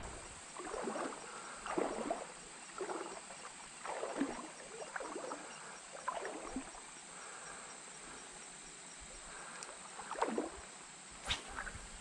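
Soft sloshing and small splashes of shallow creek water around a wading angler, a handful of separate splashes over a steady faint hiss.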